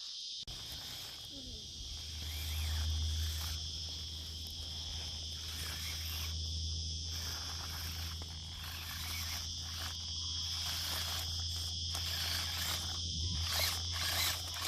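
Steady high-pitched insect chorus, cricket-like, buzzing without a break. About half a second in a low steady hum joins it, with scattered light clicks on top.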